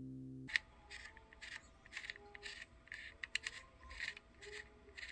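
Dial of a Siemens RDD91/KR room thermostat being turned, its rotary encoder giving a run of short, faint clicks about two to three a second as the set temperature steps up. The encoder is newly replaced and is being checked for working.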